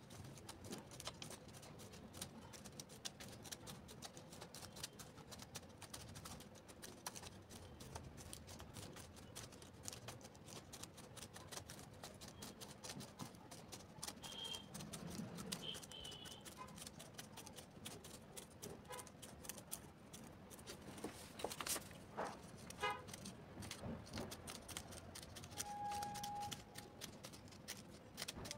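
Faint scattered clicks and taps, with a brief steady tone near the end.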